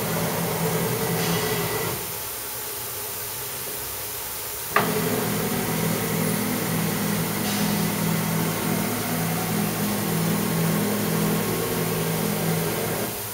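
Robotic transfer arm of a wet-bench cleaning station running with a pulsing motor hum over a steady hiss as it lifts and carries a wafer carrier. The hum stops about two seconds in, a single sharp click comes at about five seconds, and the hum resumes until it stops near the end.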